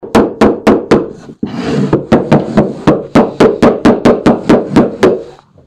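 Hammer blows on the timber roof rafters, about four a second. After the first four there is a short scratchy break, then a steady run of about a dozen more.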